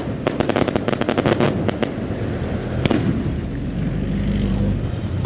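Fireworks going off: a rapid string of sharp crackling reports for about two seconds, a single bang about three seconds in, then a low rumble.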